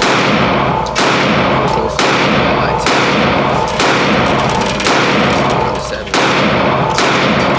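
Handgun shots at a shooting range, fired at a steady pace of about one a second, seven shots in all, each loud crack ringing on and fading before the next.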